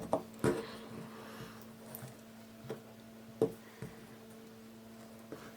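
A few soft clicks and taps from handling small metal enamel pins, over a faint steady hum.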